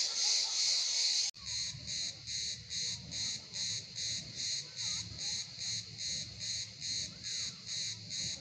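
Cicadas calling in a high, continuous drone that changes abruptly about a second in to a pulsing chorus of roughly three pulses a second.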